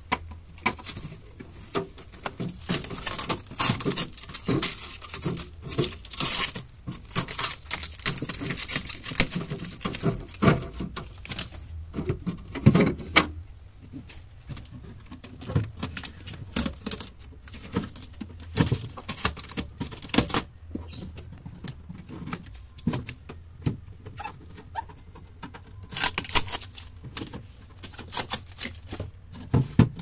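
Hands handling the plastic fittings inside a new refrigerator: the protective plastic film on the shelves rustles, and the plastic shelves and vegetable crisper drawer give irregular clicks and taps.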